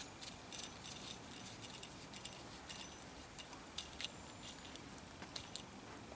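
Screwdriver turning the terminal screw of a small metal inline fuse holder to clamp the power cable: light, irregular metallic clicks and scrapes.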